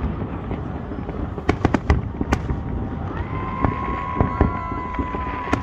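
Fireworks going off: a string of sharp bangs, several in quick succession about a second and a half in and more spread through the rest, over a continuous low rumble. A steady high-pitched tone joins about three seconds in and holds.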